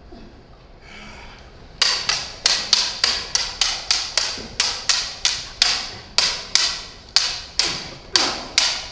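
Prop lightsaber blades clacking against each other in a fast exchange of strikes, about three sharp knocks a second, starting about two seconds in.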